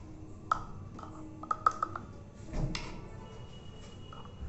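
A steel spoon clinks several times against a steel bowl while scooping thick milk mixture, each clink ringing briefly.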